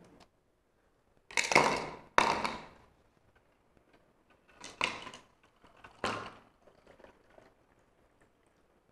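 Ice cubes dropped into glass tumblers: four sharp clunks, the first two loudest.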